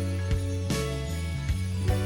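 Background music with jingle bells over a steady bass line, with percussive hits about every second and a quarter.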